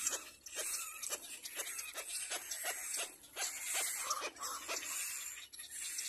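Young little black cormorant calling: a quick, uneven run of short calls, about three a second.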